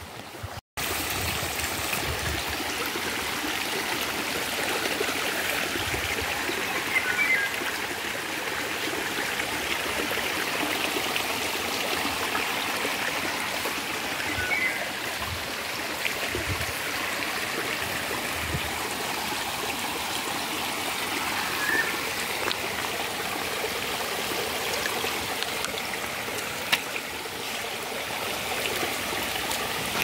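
Shallow forest brook running over stones, a steady rushing trickle, with a brief cut-out just under a second in.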